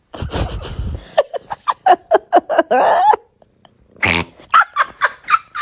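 A cat making unusual noises for him: a rough, noisy burst, then a fast run of short calls, about four or five a second. Another burst comes about four seconds in, followed by more short calls.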